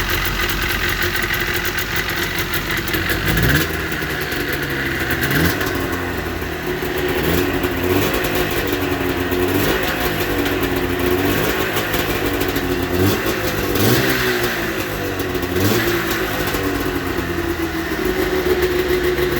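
1989 Yamaha Exciter 570 snowmobile's two-stroke twin engine idling, then blipped with the throttle again and again, each rev rising and dropping back, about once every second or two, before settling back to idle near the end.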